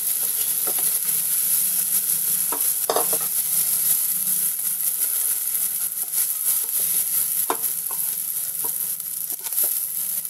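Mushroom pieces sizzling in butter in a nonstick kadhai while a spatula stirs and scoops them out, with scattered light taps and scrapes of the spatula against the pan.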